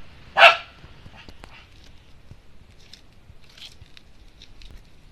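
Shiba Inu giving one loud, sharp bark about half a second in, then a few faint clicks; it is barking in earnest at an unfamiliar new toy.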